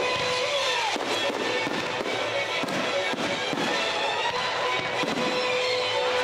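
Fireworks popping and crackling over show music with long held notes; a held note starts about five seconds in.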